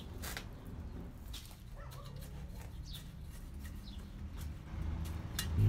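Gloved hands digging and rustling in the potting soil of a snake plant's pot, with a few faint bird chirps. A loud, low, steady tone comes in just before the end.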